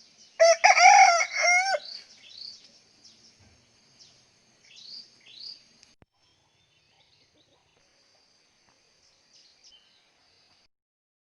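A rooster crows once, loud, in the first two seconds, followed by a few small birds chirping with short rising notes. A faint high thin steady tone runs underneath and stops shortly before the end.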